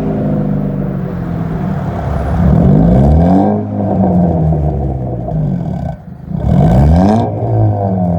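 Exhaust note of a 2000 Honda Civic hatchback's four-cylinder engine through an eBay catback with home-welded baffles, heard close to the tailpipe. The engine runs steadily, then revs up twice, each time rising in pitch and falling back.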